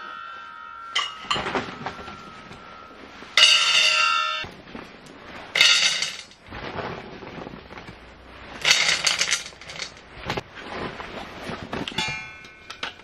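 Handfuls of wood pellets dropped into a stainless-steel funnel hopper, rattling down and setting the metal ringing, in several bursts a couple of seconds apart.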